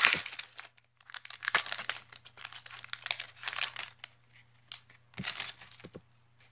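Foil Pokémon booster pack wrapper crinkling and tearing as it is opened, in irregular crackles over the first few seconds, followed by a few short rustles and clicks as the cards are handled.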